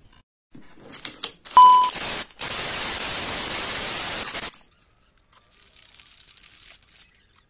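Video-transition sound effect: a short test-tone beep, then about two seconds of loud TV static hiss that cuts off suddenly. Faint crinkling of a seasoning sachet being squeezed follows.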